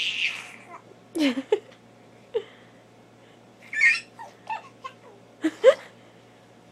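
A baby making a string of short, playful noises: breathy squeaks and brief pitched grunts that slide up and down, with pauses between them.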